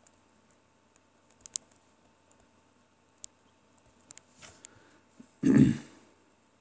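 Stylus tapping and clicking faintly on a tablet screen during handwriting, in scattered light ticks. About five and a half seconds in comes a brief, louder, muffled low sound.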